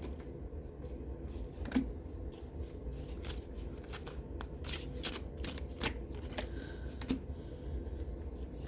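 A deck of tarot cards being shuffled and handled: irregular soft flicks and taps of the cards, over a steady low hum.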